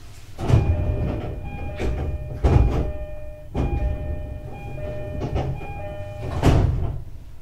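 Sounds of a stopped JR East E531-series train at a station: three loud door-like thumps with a rush of air, and chime tones sounding between them.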